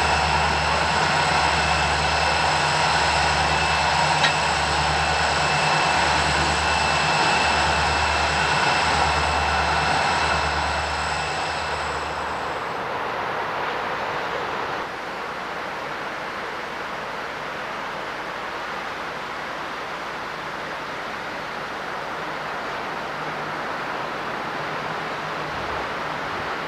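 Southern Pacific diesel-electric locomotive running close by: a steady high whine over a low engine throb that swells and fades a little more than once a second. Both cut off about twelve seconds in, leaving a quieter, steady rushing noise.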